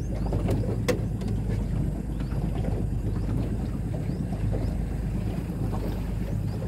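Boat engine running steadily, with wind on the microphone. A single sharp click about a second in.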